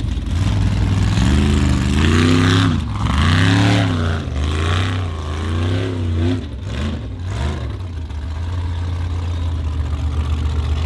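Formula off-road buggy's engine revving hard in repeated rising and falling surges as it drives up a steep dirt hill on paddle tyres, with bursts of noise from the tyres churning dirt. The revving settles to a steadier drone about two-thirds of the way through.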